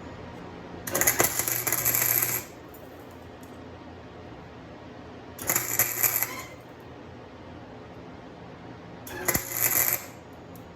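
Three short bursts of welding, each a crackling buzz lasting about a second, spaced about four seconds apart: tack welds on a homemade steel fan clutch tool, over a steady background hum.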